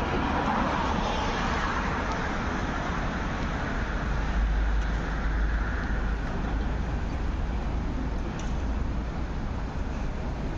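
Steady vehicle rumble, with a deep low swell from about four to seven seconds in.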